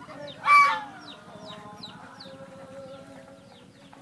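Backyard poultry calling: one loud, harsh call about half a second in, over short, high, falling peeps repeating about twice a second.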